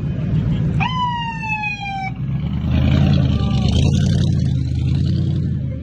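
Hummer H2 V8 engines rumbling as the SUVs drive slowly past, getting louder about halfway through. About a second in, a single siren-like tone jumps up and slides slowly down over about a second.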